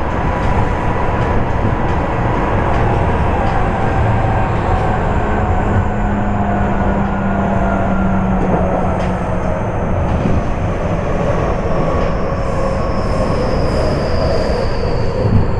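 Traction system of a Tokyu 5050 series electric train, a Hitachi IGBT VVVF inverter driving the motors, heard from inside a motor car: an inverter-motor whine with several tones that fall steadily in pitch as the train slows, over continuous wheel-on-rail running noise.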